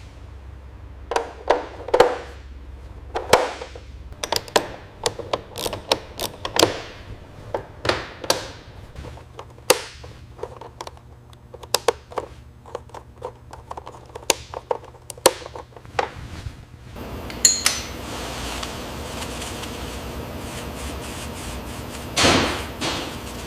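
Irregular knocks and clicks of hand-tool work, one or two a second with uneven spacing. About two-thirds of the way through they give way to a steady hiss, with one louder knock near the end.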